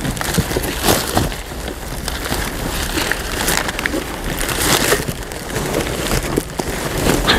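Cardboard boxes and dumpster contents being shifted and handled: irregular knocks, clunks and scrapes over a steady low rumble.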